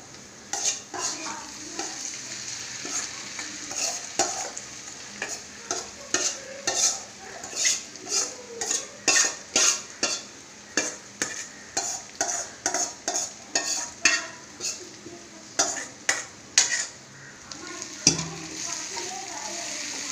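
A metal spoon repeatedly scraping and knocking against a steel bowl as spiced elephant foot yam pieces are tipped into hot oil, with the oil sizzling under them; near the end the yam is stirred in the pan.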